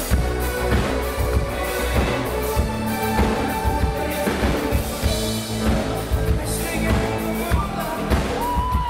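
A synth-pop band playing live through a concert PA: a drum kit keeps a steady beat under guitar and keyboards.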